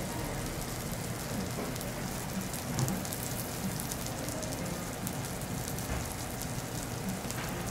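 Food sizzling on a teppanyaki griddle: a steady crackling hiss with many fine pops. A soft knock comes about three seconds in.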